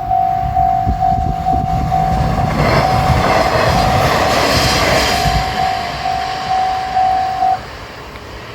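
Japanese railroad crossing bell ringing in a fast, evenly repeated ding over a diesel railcar train passing through the crossing. The train's rushing noise peaks about three to five seconds in over a low engine rumble. The bell stops near the end as the crossing clears.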